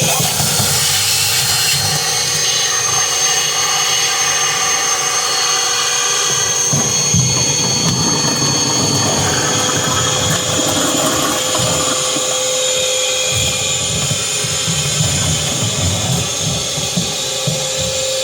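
Shop vacuum running steadily with a high whine and a rushing noise, sucking debris up off a car's stripped floor, with uneven low rumbling as the hose takes in dirt.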